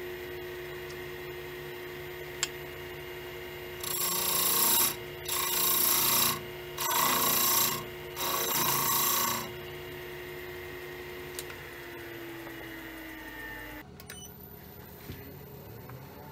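Wood lathe running with a steady hum while a hand-held turning tool makes four cuts of about a second each into the end of a spinning willow twig vase, each cut a rush of scraping noise.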